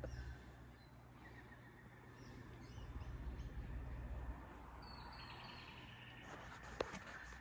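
Faint birds chirping over a low steady hum, with one sharp click near the end.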